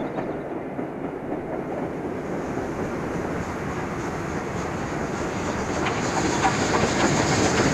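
A 1950s archive recording of a steam-hauled goods train passing, its wagons clattering over the rail joints. The clatter grows louder in the last couple of seconds.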